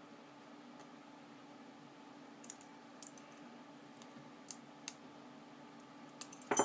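Scattered small clicks and taps of metal knife parts and a tool being handled during reassembly of a Benchmade Griptilian folding knife. A quick cluster of sharper metallic clinks near the end is the loudest part.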